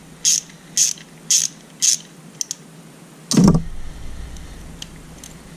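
Ratcheting 5/16 wrench clicking in short bursts, about two strokes a second, as it backs a nut off an outboard reed valve's reed stop. The strokes stop about two seconds in, and a single loud clunk follows about halfway through.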